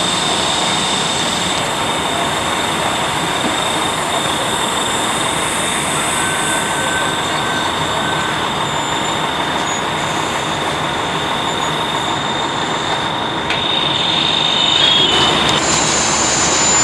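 Steady, loud rushing mechanical noise of fire apparatus engines and pumps running at a working house fire, with thin high whistling tones over it. It grows a little louder near the end.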